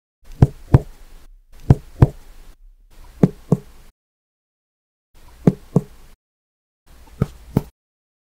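Clinical chest percussion: a finger striking the middle phalanx of another finger laid flat on a man's chest. The taps come in pairs, about a third of a second apart, in five short separate clips. They are examples of percussion notes, among them a dull and a stony dull note.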